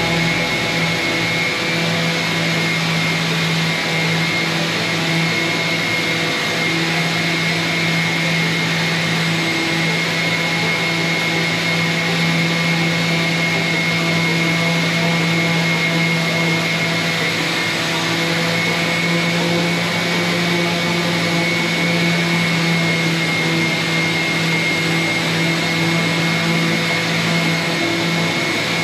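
A small electric motor running steadily at constant speed, with an even hum and a high whine.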